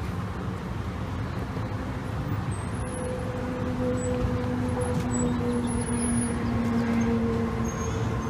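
Engine running steadily over a low rumble, with a steady droning hum that comes in about three seconds in as the sound grows a little louder.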